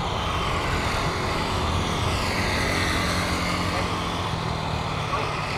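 Airliner's engines running as it passes overhead, a steady loud rush whose tone sweeps down and back up about halfway through.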